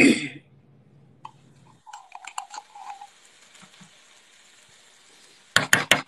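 Metal spoon scraping tomato paste out of a tin can onto ground turkey in a frying pan, with clinks and a short ring of the can. Near the end the spoon is tapped against metal in a fast run of about seven sharp taps to knock the paste off.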